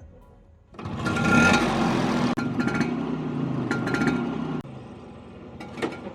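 Vespa Sprint scooter's two-stroke single-cylinder engine starting up about a second in and running loud and busy, then dropping suddenly to a quieter, steady running level for the last second and a half, with a few sharp clicks.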